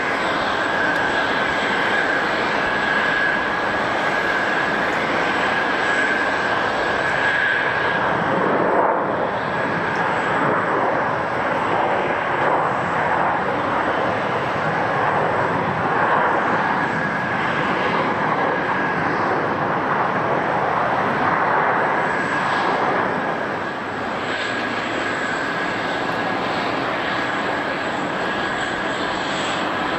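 Jet airliner engines running, a steady rushing noise with a high whine held over it; the whine fades for a few seconds about a third of the way in and comes back.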